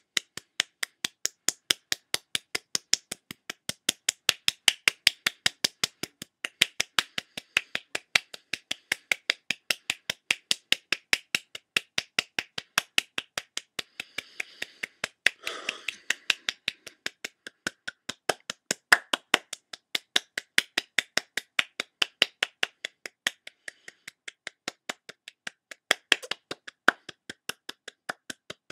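Fingers snapping in a steady, even rhythm, about four to five snaps a second.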